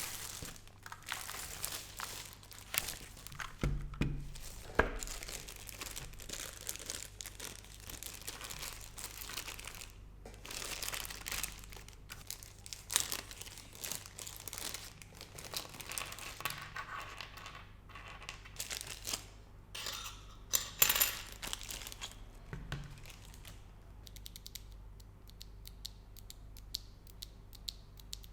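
Typing on a Royal Kludge RK100 mechanical keyboard with linear red switches and ABS keycaps: a continuous irregular clatter of key presses. The keystrokes come quicker and lighter over the last few seconds.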